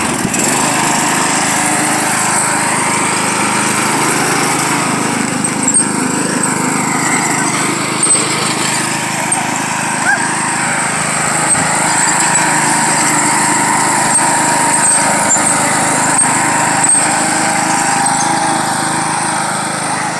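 Riding lawn mower engine running steadily under load as it tows two people sitting on boards across the grass, with a few brief knocks along the way.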